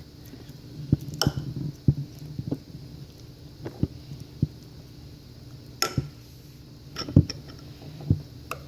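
Homemade glue-and-borax slime being worked by hand, giving about ten scattered short sticky clicks and squelches over a faint low hum.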